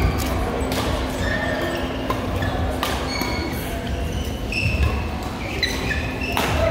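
Badminton racket strikes on a shuttlecock during a doubles rally, several sharp hits a second or more apart, with short shoe squeaks on the court mat in between. Voices chatter in the background.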